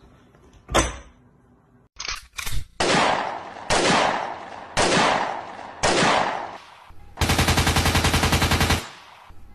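Gunfire-like bangs: a sharp crack, a few short knocks, then four loud shots each trailing off, and near the end a rapid burst of about a second and a half, like a machine gun.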